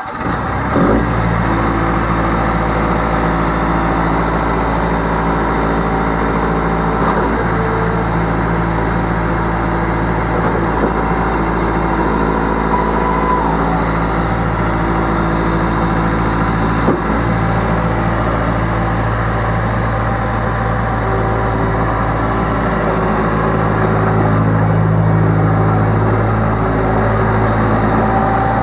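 Case 1845C skid steer loader's diesel engine running steadily at idle, with one sharp click partway through and a slight rise in level near the end.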